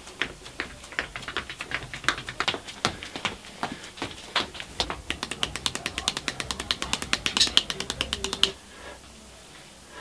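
Wooden drumsticks tapping in quick, dry clicks as a drummer warms up before a gig: a few strokes a second at first, then a fast, dense roll of strokes, which stops abruptly shortly before the end.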